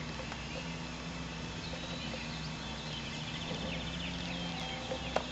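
Outdoor background: birds chirping, with a short trill a little past halfway, over a steady low hum; a single sharp click near the end.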